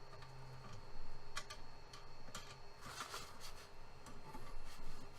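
Light hand-handling noises while levelling a 3D printer bed: a few irregular soft clicks and a brief rustle of paper being slid under the nozzle, over a faint steady hum.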